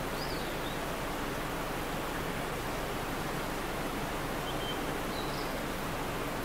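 Steady, even rushing outdoor ambience with no sound from the grooming itself, and two faint high chirps, one near the start and one about five seconds in.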